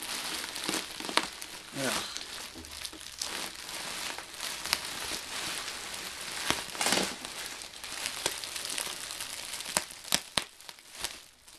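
Plastic bubble wrap crinkling and crackling with many sharp little cracks as it is handled and pulled away from the underside of a computer hard-drive case, where melted rubber feet have glued it to the case.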